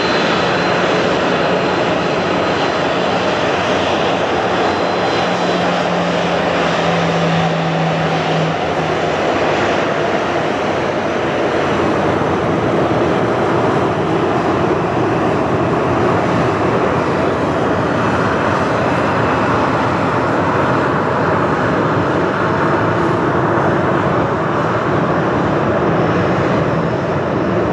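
Jet airliner engines running, heard as a loud, steady rushing noise with a low hum that fades out about nine seconds in.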